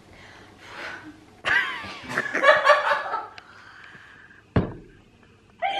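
A woman giggling in short bursts for about two seconds, muffled behind her hand, then a single sharp thump about four and a half seconds in.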